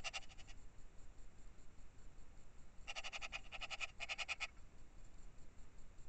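Eurasian magpie chattering: a short burst of its rapid rattling call at the start, then a longer rattle of about a second and a half, in three quick runs, about three seconds in.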